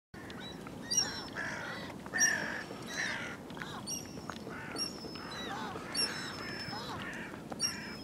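A flock of birds calling over one another: a steady chatter of short harsh calls, with a louder, sharper call standing out about once a second.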